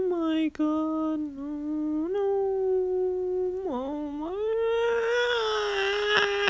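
A young man's mock wailing cry: one long drawn-out vocal tone with no words. It steps up in pitch about two seconds in, dips and climbs again near four seconds, then turns rough and breathy toward the end.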